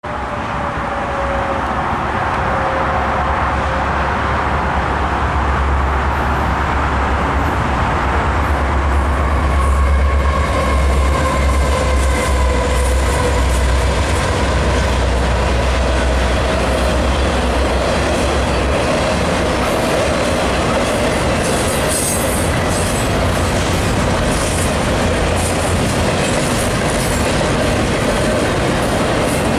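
Two CN diesel freight locomotives approach and pass with a heavy low engine rumble and tones that fall in pitch as they go by. The locomotives are followed by double-stack container cars rolling past with steady wheel-on-rail noise, clickety-clack and some high wheel squeal.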